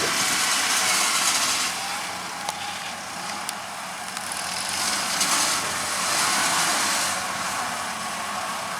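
Farm machinery engines running steadily in a rice field: a continuous mechanical noise, with two faint ticks midway.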